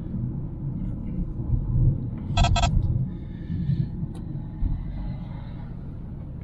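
Low engine and road rumble inside the cabin of a moving 2011 Chevy Cruze with a 1.8-litre engine and six-speed manual. Two quick high beeps sound about two and a half seconds in.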